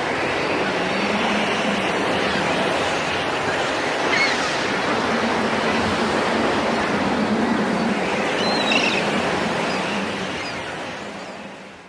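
Lake Erie waves breaking steadily on the shore, a continuous rushing wash, fading out over the last couple of seconds.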